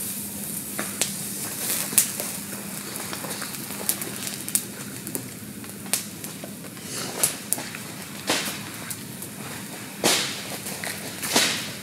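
Small open campfire of sticks and dry leaves crackling, with irregular sharp snaps and pops over a steady hiss. A few louder rustling swells come near the end.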